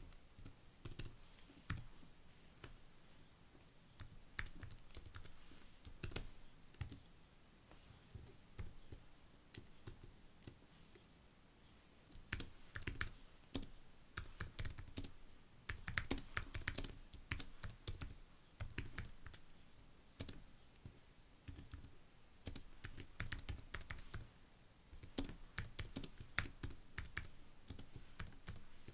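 Typing on a computer keyboard: keys click in irregular runs, sparse at first and busier from about halfway.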